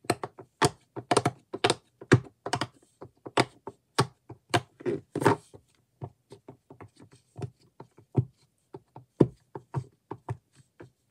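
Fingers pressing the bubbles of a silicone frog-shaped pop-it fidget toy: a quick, irregular string of popping clicks, louder over the first half and softer after.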